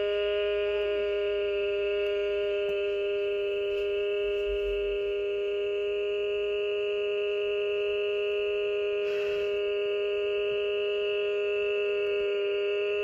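A steady held electronic tone of two notes sounding together, unchanging in pitch and loudness. There is a brief soft rustle about nine seconds in.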